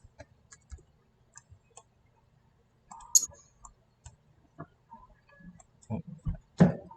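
LEGO Technic parts clicking and knocking as they are handled and fitted together: scattered light clicks, a sharper snap about three seconds in, and a few louder knocks near the end.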